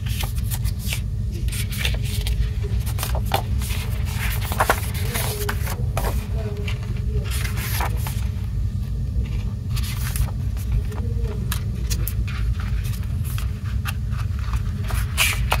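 Paper and thin cardboard rustling and scraping in short irregular bursts as sleeves and inserts are handled and booklet pages are turned, over a steady low rumble.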